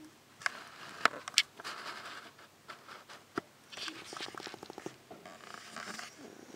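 Sleeping 12-week-old German Shepherd puppy snoring, with a fluttering rattle on one breath about four seconds in. A few sharp clicks come in the first half.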